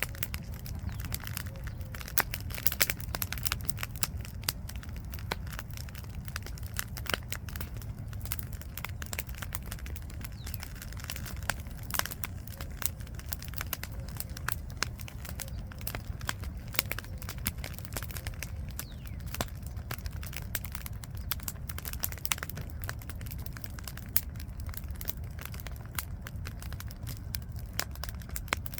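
Wood campfire crackling, with frequent sharp pops and snaps at irregular intervals over a low steady rumble.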